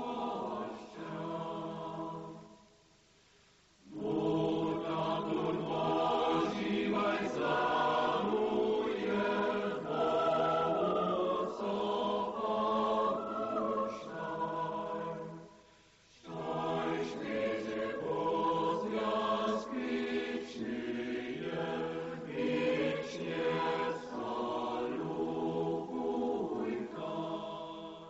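A choir singing sustained harmonies in long phrases, with a pause about three seconds in and a brief break about halfway through, fading out at the end.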